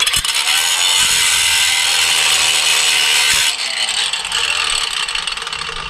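Cut-off tool with an abrasive disc grinding into the seized brake-drum retaining screw on a bus front hub: a loud, steady grinding that starts abruptly, holds for about three and a half seconds, then turns duller and tapers off.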